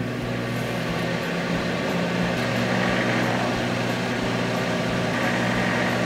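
Haier microwave oven running at 600 W while heating a bowl of egg mixture: a steady hum of several low tones from the oven's transformer and fan.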